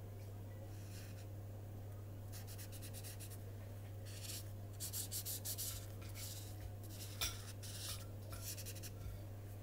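Felt-tip marker rubbing across paper in a run of short, quick strokes, starting about two seconds in and densest in the middle, with one sharp tap about seven seconds in. A steady low electrical hum runs underneath.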